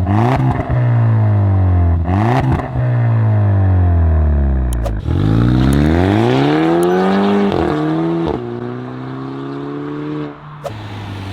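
Volkswagen GTI engine under load: the engine note falls in pitch twice, with short crackles near the start and about two seconds in, then revs up steeply about five seconds in. Two quick gear changes come near eight seconds, and it settles to a steadier, quieter note.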